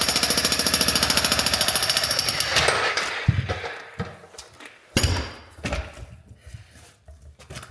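Jackhammer breaking out a saw-cut section of concrete slab: rapid, even hammering for about two and a half seconds that then stops, followed by a couple of short bursts.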